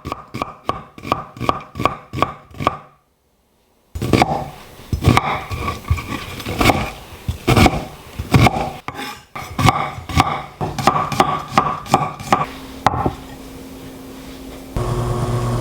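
Knife chopping on a wooden cutting board, first in quick even strokes about four a second, then after a short break in a looser, irregular run. Near the end a steady electric hum starts.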